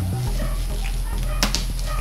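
Scissors cutting through bubble wrap, with one sharp snip or crackle about a second and a half in, over a steady low hum.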